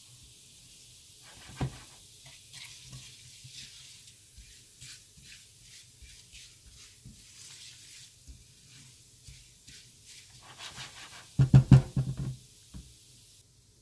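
Cumin seeds and black peppercorns sizzling and crackling in hot oil in a frying pan while a silicone spatula stirs them. There is a single knock early on and a quick run of loud knocks and scrapes near the end as the spatula works against the pan.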